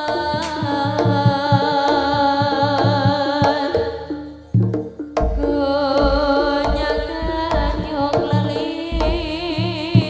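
Live jaranan gamelan music: a drum pattern of repeated low strokes under a sustained, wavering melody line. The music dips briefly a little before the middle, then comes back with heavier bass.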